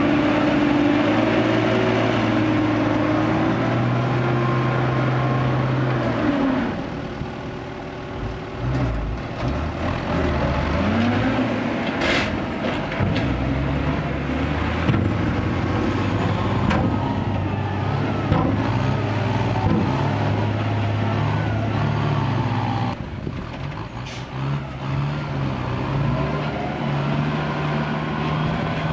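Mitsubishi ten-wheel dump truck's diesel engine running under load, revving up as the hydraulic hoist raises the loaded bed to tip out soil. There is a sharp clank about twelve seconds in, and the engine sound dips twice.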